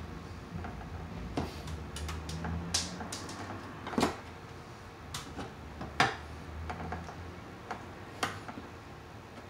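Scattered clicks and snaps of pliers and stiff 10-gauge copper wires being handled in a metal electrical junction box, the sharpest about four and six seconds in.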